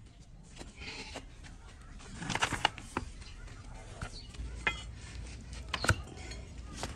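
A broad flat hoof-trimming blade shaving and cutting the horn of a donkey's hoof against a wooden block: a series of crisp, irregularly spaced scraping cuts, busiest a little over two seconds in.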